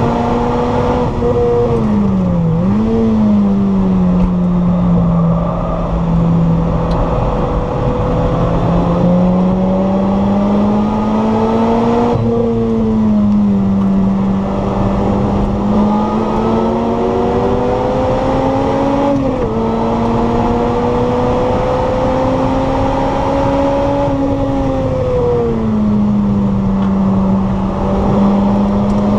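Lotus Elise SC's supercharged 1.8-litre Toyota four-cylinder engine under hard acceleration, heard from inside the cabin. The note climbs steadily through the revs and drops or jumps at a few gear changes and downshifts for corners.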